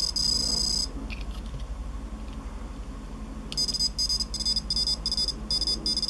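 Piezo buzzer of a home-built electronic Morse code keyer sounding a high-pitched sidetone. One steady tone lasts just under a second, then there is a pause of a couple of seconds, then fast-keyed Morse dots and dashes.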